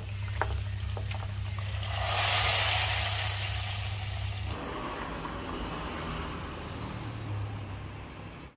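Hot-oil tarka poured from a frying pan into a pot of daal, hissing loudly as it hits the liquid: the sizzle swells about two seconds in and dies away, over a steady low hum. About halfway through it cuts to a quieter, hazy background noise.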